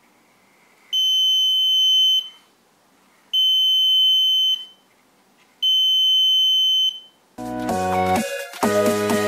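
Piezo alarm buzzer sounding three steady high-pitched beeps, each just over a second long, while a card blocks the laser beam falling on the light-dependent resistor: the light sensor has tripped. Electronic music starts near the end.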